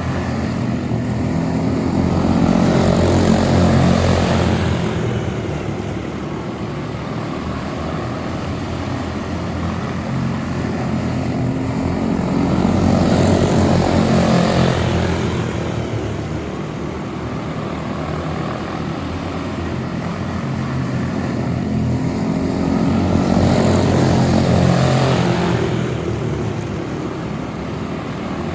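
Quarter midget race cars running laps in a pack, their small engines droning steadily. The sound swells and fades as the field passes about every ten seconds, three times.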